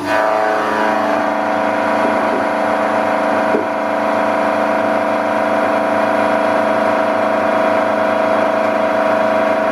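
Milling machine's four-insert face mill cutting the edge of a 1030 steel billet dry, 4 mm deep. It gets louder right at the start as the cutter bites in, then holds a steady, ringing multi-pitched whine.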